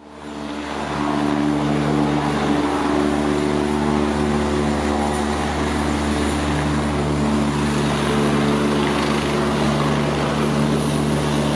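Rescue helicopter hovering: steady rotor and turbine noise with a constant low hum, fading in over the first second.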